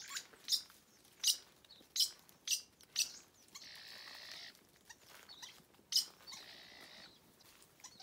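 About seven short, sharp, high chirps spaced irregularly, with two stretches of dry rustling in leaf litter, one about halfway through and one near the end.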